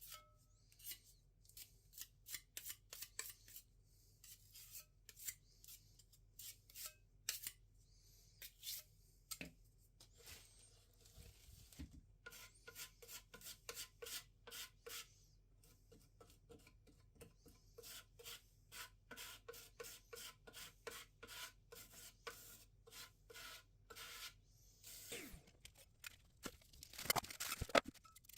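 Putty knife spreading and scraping wood filler over the birdhouse's wood to fill gaps: a long run of short, faint scraping strokes, about one or two a second, that get a little busier near the end.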